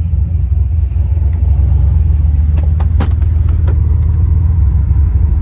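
Yukon Denali's 6.0 LQ4 V8, with LS3 top end and a 228/228 cam, idling steadily with a low rumble, a few faint clicks about halfway through.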